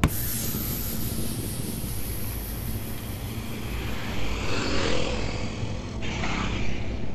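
Motorcycle and scooter engines running on the road, a steady hiss over a low rumble; a motorcycle passes close, getting louder about four to five seconds in.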